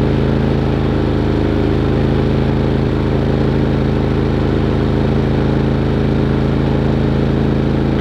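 Harbor Freight Predator 3500 inverter generator's single-cylinder engine running steadily under load while it powers an RV air conditioner, refrigerator and lights.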